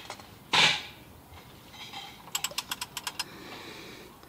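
Hand ratchet with a 13 mm socket and extension clicking in a quick run of about ten clicks as the socket is set on the oil-pan drain plug. A short scrape comes about half a second in.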